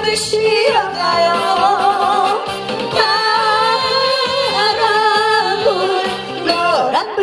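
A woman singing a Korean song live into a handheld microphone, holding long wavering notes with vibrato over instrumental accompaniment.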